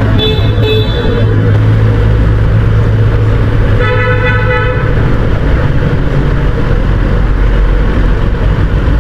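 Vehicle horns in traffic: two short beeps right at the start, then one longer honk about four seconds in. Underneath, the steady low drone of a Kawasaki ZX-10R's inline-four engine running.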